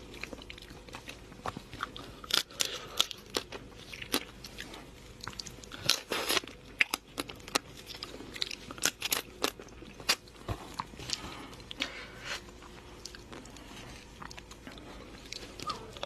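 A person chewing crunchy food close to the microphone: irregular crisp crunches and bites, a few louder ones among many soft ones.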